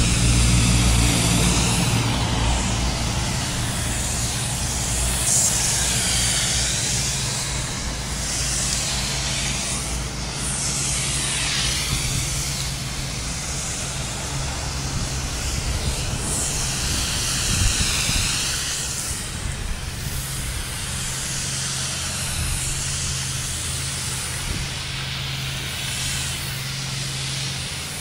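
Spray gun hissing steadily as it sprays a liquid base coat over polyurethane foam roofing, the hiss shifting in tone every few seconds, over a steady low mechanical hum.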